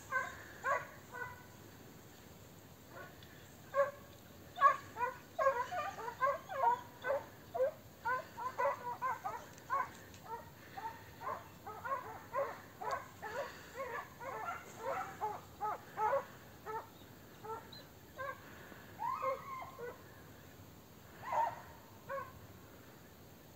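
Hunting dogs yelping in quick runs of short, high barks while working a hare's scent, thickest through the middle and thinning toward the end, with one longer cry near the end.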